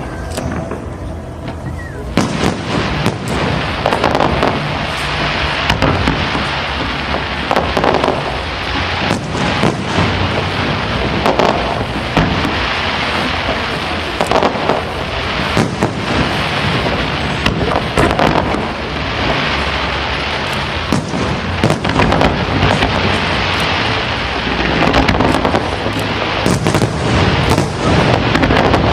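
Fireworks display: aerial shells bursting in rapid, near-continuous succession with crackling, thickening from about two seconds in.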